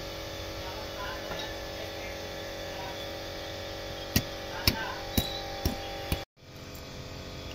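Sharp metallic clicks from hand tools on the engine as the vacuum pump is fitted to the cylinder head, five of them about half a second apart starting about four seconds in, over a steady workshop hum.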